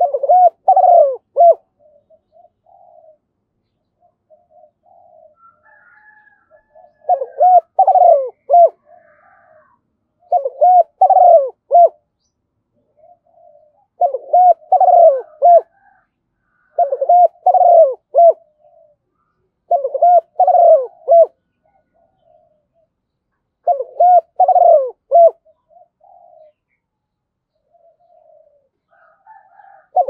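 Spotted dove singing: seven loud phrases of several coo notes, each about a second and a half long, recurring every few seconds, with faint soft coos between them.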